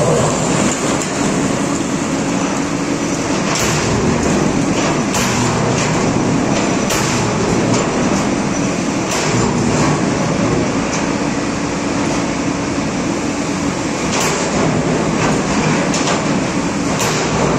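JCB JS290 tracked excavator's diesel engine working under heavy load as its bucket digs into hard, broken rock, the engine note rising and falling with each pass. Sharp scrapes and knocks of the bucket against rock come every second or two.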